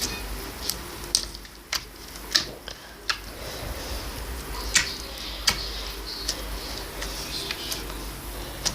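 Slime being handled, giving irregularly spaced sharp clicks, the loudest about two seconds in and near the middle.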